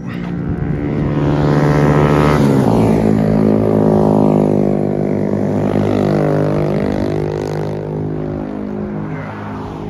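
Motorcycle engines passing by on a road: one passes close about two seconds in, its engine pitch dropping as it goes by, then more motorcycles and traffic come up, their engine notes rising and falling.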